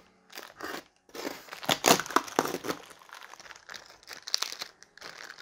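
Packaging wrap crinkling and tearing as it is handled and pulled open to unwrap a computer-case part: irregular rustles and crackles, busiest about one to three seconds in.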